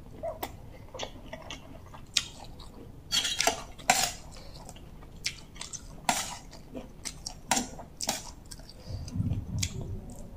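Close-up chewing of bamboo shoot curry, with a metal spoon clinking and scraping against a ceramic soup bowl in scattered clicks, the loudest a few seconds in.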